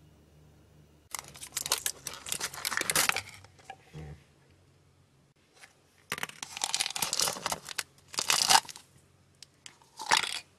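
Crinkly plastic and foil packaging of a DIY candy kit being torn and handled in several crackling bursts as the container is opened and its foil sachets are pulled out. The first burst comes about a second in, and a shorter one comes near the end.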